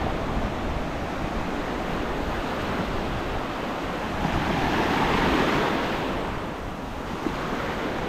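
Sea surf washing onto the beach, a steady rush of waves that swells louder as a wave breaks about four seconds in, then eases off after about six seconds.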